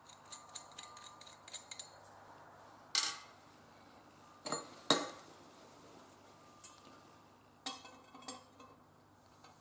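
Light metallic clinks and knocks of metal parts being handled, over a faint steady low hum, with the sharpest knocks about three and five seconds in.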